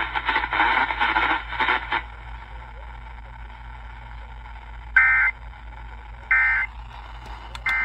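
Weather radio broadcast through a receiver: the synthesized announcer voice stops about two seconds in and leaves steady static hiss. Three short, loud bursts of warbling digital data tones follow about 1.3 seconds apart. These are the EAS/SAME end-of-message bursts that close the severe thunderstorm warning.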